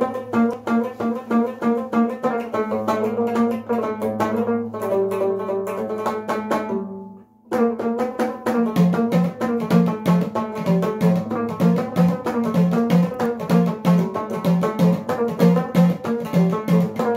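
Moroccan lotar, a long-necked plucked lute, played in fast, even strokes: a rhythmic melody over a repeated low note. The playing stops for a moment a little past the middle, then starts again with a steady pulsing bass note under the melody.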